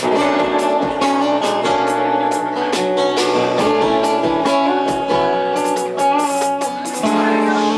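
Instrumental break in a rock song: guitars playing over a steady beat, with no vocals.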